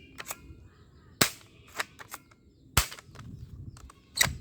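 Toy airsoft gun clicking and snapping: three loud, sharp snaps about a second and a half apart, with fainter clicks between.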